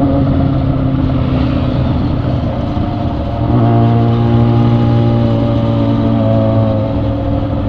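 Yamaha XJ6 inline-four motorcycle cruising at a steady speed, with wind and road noise. From about three and a half seconds in, a second engine note grows louder: a Honda XR 250 Tornado single-cylinder riding alongside.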